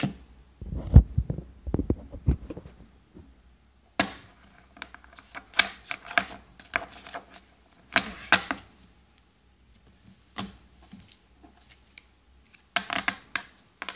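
Trading cards being handled and sorted by hand: a run of short clicks, snaps and rustles as cards are slid and flicked against each other, with a few low thumps between about one and two and a half seconds in.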